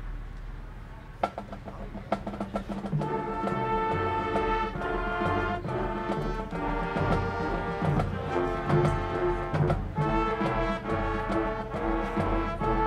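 High school marching band playing its field show: a few seconds of scattered percussion hits, then about three seconds in the brass and winds come in with held chords over the drums.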